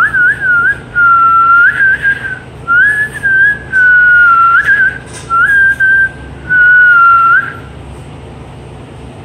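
A person whistling loudly in a series of clear, held notes with small upward flicks between them, in about six short phrases. It stops a little before eight seconds in.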